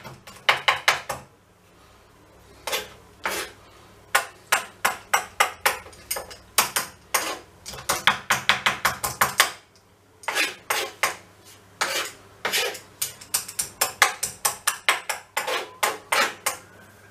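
Kitchen knife finely mincing garlic on a wooden cutting board: quick runs of sharp knife taps on the board, about five a second, broken by a couple of short pauses.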